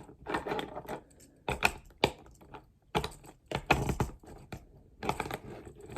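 Hard plastic toy parts of a Transformers figure clicking and clattering as they are handled and fitted onto the figure's foot, in four short bursts of small clicks.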